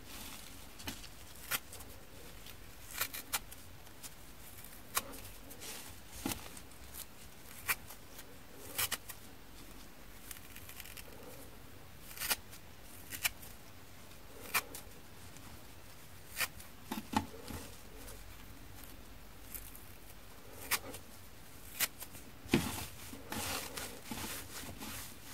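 Hands ripping small pieces of kitchen sponge and its abrasive scouring pad apart, giving short, sharp tearing crackles at irregular intervals about a second apart, now and then in quick clusters.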